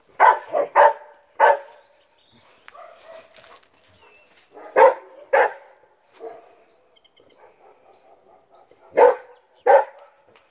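A hairless dog barking in short bunches: four quick barks in the first second and a half, two more near the middle, and two near the end.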